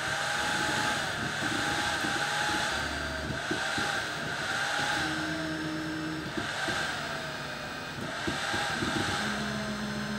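Stepper motors of a DIY laser-engraving machine whining as they move the diode laser head, the pitch sweeping up and down in repeated arcs about once a second, over a steady whirring hiss. A low steady hum joins near the end.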